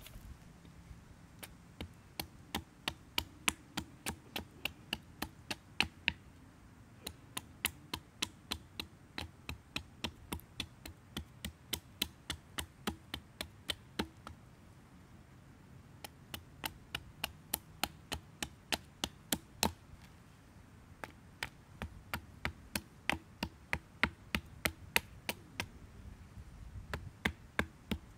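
Small hatchet striking a driftwood beam in quick, light blows, about two to three a second, in runs broken by short pauses.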